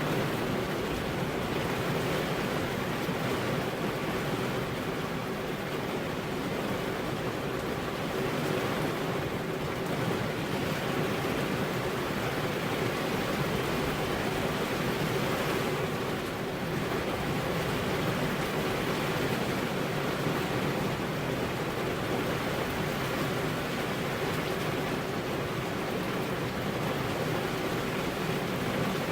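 Steady rainfall: an even, unbroken hiss of rain with no distinct drops or thunder claps standing out.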